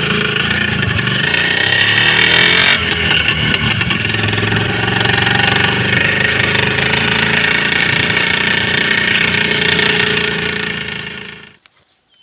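IZh motorcycle's two-stroke engine running steadily, its note shifting about three seconds in. It tails off and cuts out near the end.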